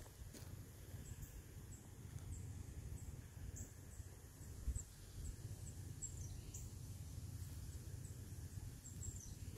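Quiet woodland ambience: faint, short, high chirps recurring every second or so over a low rumble, with one soft thump near the middle.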